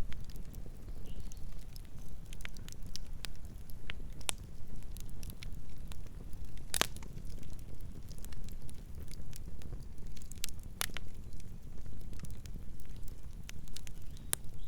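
Campfire burning with a steady low rumble and irregular crackles and pops of wood, the sharpest pop about halfway through.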